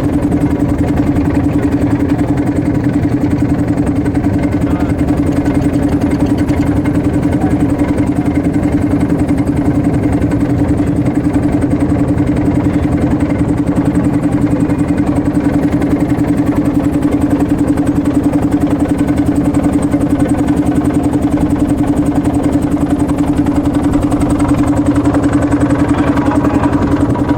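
Motorboat engine running at a steady speed, a constant unchanging drone.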